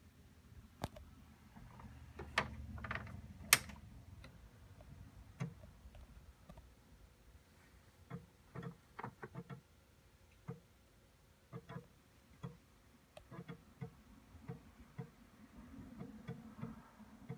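Atari 520STFM's built-in 3.5-inch floppy drive loading the boot disk: the read head steps and seeks in short, irregular clicks while drivers load. A few sharper clicks over a low rumble come in the first four seconds.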